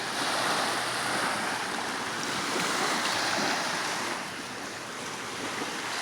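Small waves washing onto a beach, a steady surf hiss that swells and eases a couple of times.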